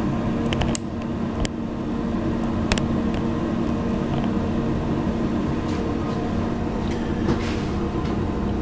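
Steady mechanical hum of a machine running, with a few light metal clicks in the first three seconds as parts are handled.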